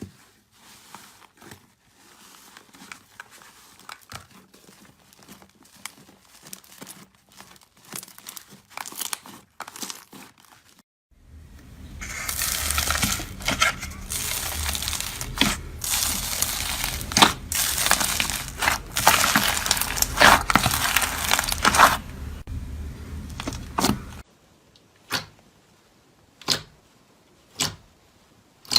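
Slime being squeezed and pressed by hand, crackling and crinkling. It starts as faint, sparse crackles, turns to loud, dense crunching about eleven seconds in, and ends with a few single sharp clicks about a second apart.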